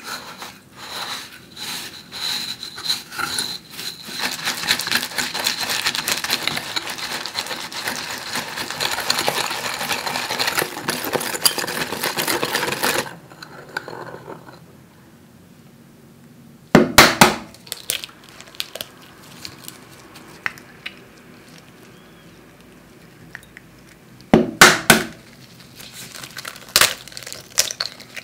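Wire whisk beating instant coffee, sugar and hot water in a glass bowl: rapid clinking and scraping against the glass, in a few slower strokes at first, then fast and steady for about nine seconds before stopping. After a quiet stretch come two loud sharp knocks, the second a double.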